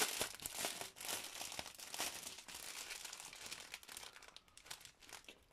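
Crinkling of plastic packaging as the small sealed bags of diamond-painting drills are handled: a dense run of crackles that fades away toward the end.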